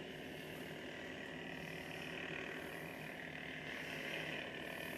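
Steady electronic idle hum from ignited Force FX lightsabers, a continuous low drone with a hissy buzz above it.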